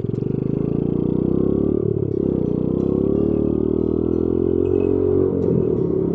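Honda Monkey Z50J's 49cc single-cylinder four-stroke engine pulling under throttle while riding. Its note comes up at the start, dips briefly about two seconds in, then climbs again.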